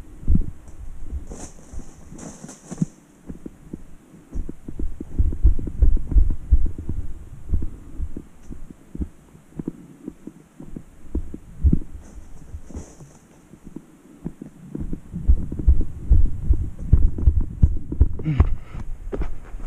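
Footsteps and body-worn camera movement while walking down a dirt trail: uneven low thuds, easing off for a few seconds in the second half.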